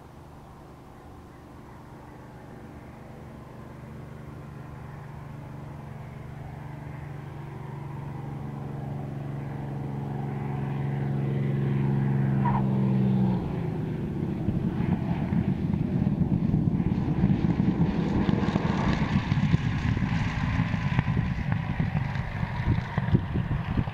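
Spitfire T9's Rolls-Royce Merlin V12 engine running, a steady drone that grows steadily louder. About 13 seconds in it changes abruptly to a louder, rougher engine noise with irregular gusty spikes.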